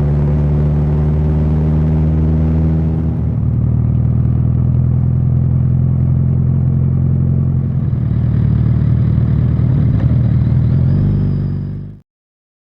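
An engine running steadily, turning rougher after about three seconds, then cutting off abruptly about a second before the end.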